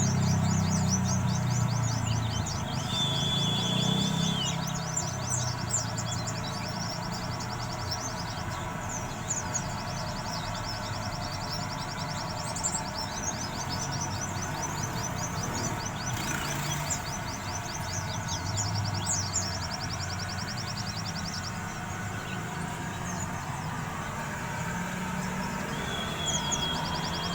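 Pleci (white-eye) twittering in its rapid 'ngeriwik' chatter: long runs of fast, evenly repeated high chips with short breaks, and a brief held high whistle twice.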